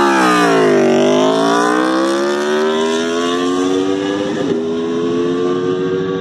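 Aprilia RSV4's V4 engine making a launch-control start. The revs dip as the clutch bites in the first second, then climb steadily as the bike accelerates away, with a short break in the pitch about four and a half seconds in, an upshift.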